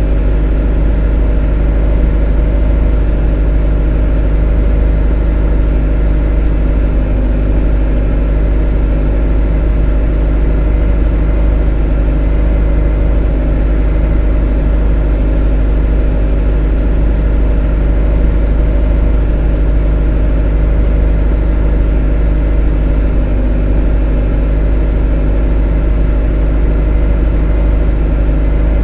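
A motor running steadily at a constant speed: a deep, heavy hum with a steady drone of tones above it, unchanging throughout.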